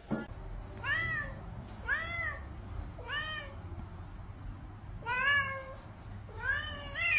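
A cat meowing over and over, short rising-and-falling meows about a second apart, with two coming close together near the end.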